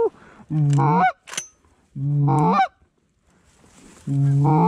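Loud goose honks: three drawn-out calls about half a second each, each a low note that breaks upward in pitch at the end, with a brief sharp click between the first two.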